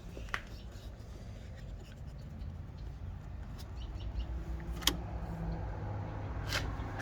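Battery charger humming steadily after its amperage is turned up, a little louder about four seconds in, with a few sharp clicks.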